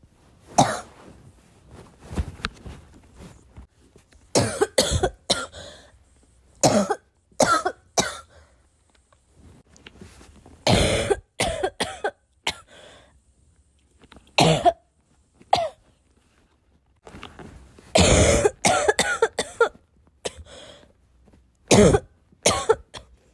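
A person with a bad cough coughing over and over, in single coughs and in quick runs of three or four, with short pauses between the fits.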